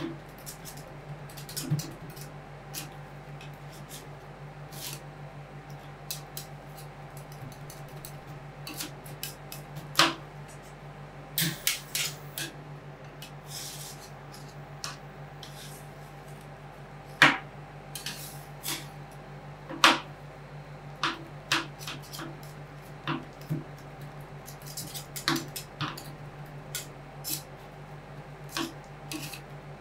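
Metal ice cream roll spatulas tapping, chopping and scraping on a frozen steel cold plate, in irregular sharp clicks with a few harder strikes, over a steady low hum.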